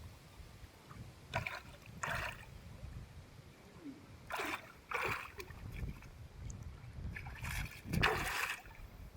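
Water splashing and sloshing in short, irregular bursts over a low rumble.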